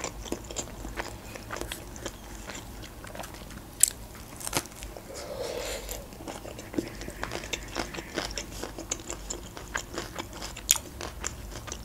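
Close-up eating sounds: a homemade burrito wrapped in lavash being bitten into and chewed, heard as many small irregular clicks and crunches, with a few sharper ones about four seconds in and near the end.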